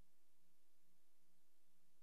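Near silence: a faint steady hiss and low hum on the empty soundtrack of a silent newsreel.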